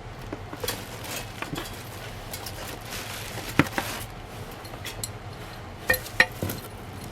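Metal ceiling-fan parts, a ball-and-socket downrod and canopy, clinking and knocking together as they are handled and fitted. There is a scatter of light clicks, a sharper clink a little past the middle and two quick loud knocks near the end, over a low steady hum.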